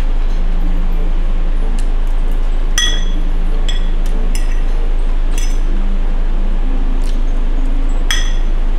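Eating utensil clinking against a plate: about six light, ringing clinks at irregular intervals over a steady low hum.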